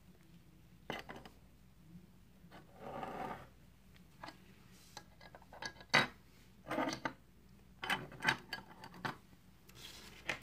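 Hard plastic card holders and clear acrylic display stands being handled on a tabletop: scattered clicks and taps, a short scrape about three seconds in, and a few sharper knocks from about six seconds on.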